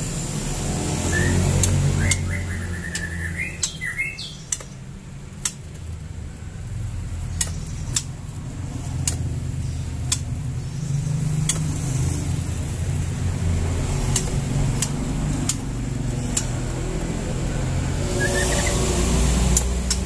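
Caged birds, white-rumped shamas and a yellow-vented bulbul, giving short chirps in the first few seconds and again near the end. Scattered sharp clicks throughout, over a steady low rumble.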